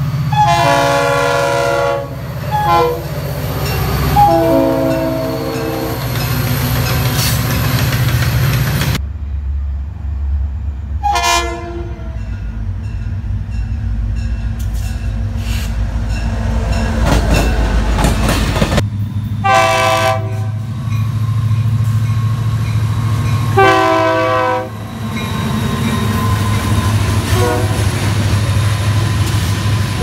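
Diesel freight locomotive horn sounding a series of blasts, some long and some short, over the steady low rumble of the locomotive and its passing wagons. The sound changes abruptly about 9 and 19 seconds in, where one clip cuts to the next.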